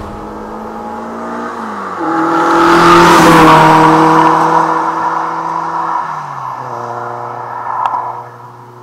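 Toyota AE86 Sprinter Trueno's 4A-GE four-cylinder engine passing close by at steady revs, loudest about three seconds in, then fading as the car pulls away. The engine note drops in two steps, about two and six seconds in.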